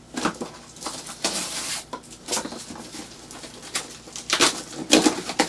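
A mail package being torn open by hand: irregular ripping and crinkling of paper and packaging, with a longer tear about a second in and a flurry of rips near the end.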